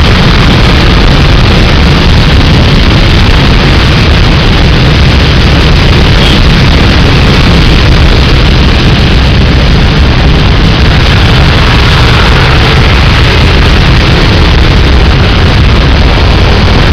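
Heavy rain pouring down in a loud, steady rush with a deep rumble underneath, filling the sound without a break.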